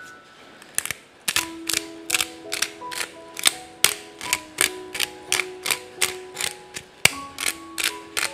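Pepper mill grinding black pepper, its twisting mechanism making a quick run of ratcheting clicks, about four a second, starting about a second in.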